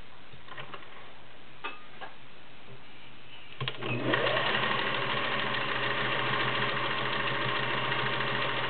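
Singer 403A gear-driven, all-metal sewing machine starting up about three and a half seconds in, its motor whine rising briefly, then running steadily at speed while stitching a zigzag. A few faint clicks come before it starts.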